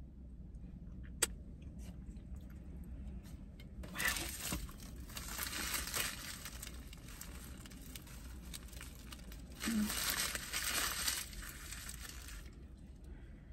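A paper sandwich wrapper being crumpled and folded by hand, crinkling in two stretches, one starting about four seconds in and another about ten seconds in. A single sharp click about a second in.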